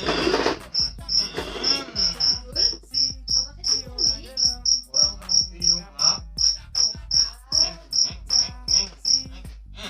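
Cricket chirping steadily, short high chirps at about three a second, evenly spaced.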